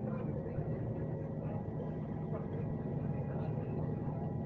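Scania K370C coach engine running steadily under way, heard from on board with road and cabin noise.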